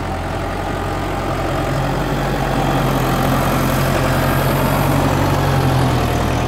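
Diesel tractor engine running steadily at low revs close by, growing a little louder as the tractor draws near.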